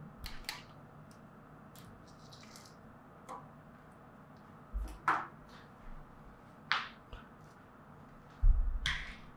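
Small plastic clicks and light rustling as a small RC car's battery connector is pulled apart and its wiring handled, followed by scattered light taps. Two low thumps with a click come about halfway through and near the end, the later one louder.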